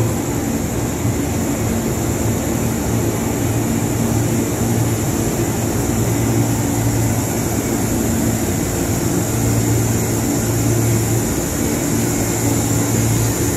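CC206 diesel-electric locomotive idling steadily: a low, even engine hum with a thin high whine over it.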